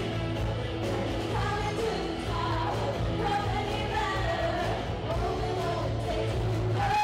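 Live rock band playing: electric and acoustic guitars, bass and drums under female lead vocals, with the sung melody coming to the front about a second and a half in.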